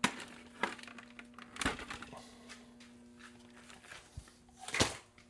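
Hard plastic RC truck body being handled and worked at the windshield: a few sharp clicks and knocks, with a longer knock near the end.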